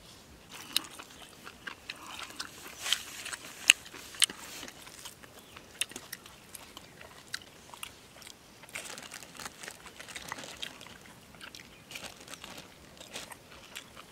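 Close-up eating sounds of someone eating mutton curry: chewing and crunching, with irregular sharp clicks and smacks, the sharpest about three to four seconds in.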